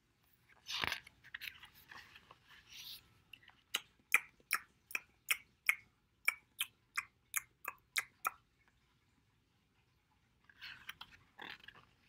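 A picture-book page turning with a papery rustle, then about a dozen quick, evenly spaced crunching clicks, two or three a second, chewing noises made with the mouth for a character eating. Another page turns near the end.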